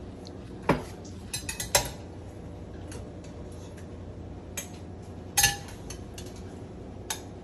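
Metal spoon clinking and knocking against dishes and the cooking pot while scooping out egg pudding: a handful of short, sharp clicks scattered through, the loudest about five and a half seconds in.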